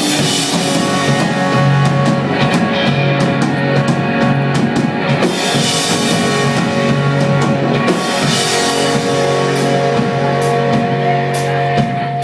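Rock song in an instrumental passage: drum kit with cymbal strokes under held guitar and bass notes.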